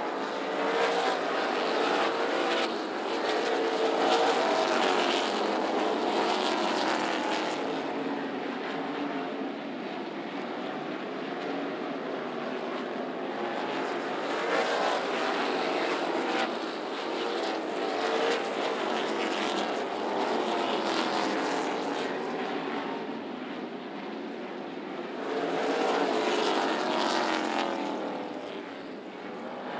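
A pack of NASCAR K&N Pro Series V8 stock cars racing on a short oval, their engines rising and falling in pitch as they accelerate off the turns and lift into them. The sound swells and fades in waves as the pack passes nearest, three times.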